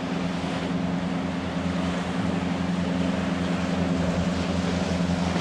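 A passing boat's inboard or outboard engines running with a steady low hum, over a wash of wind and surf noise.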